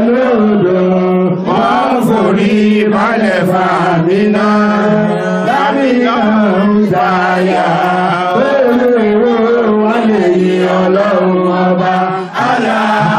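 Men chanting an Arabic salawat refrain (blessings on the Prophet Muhammad) in unison through microphones and a PA, the melody flowing over a steady low held note.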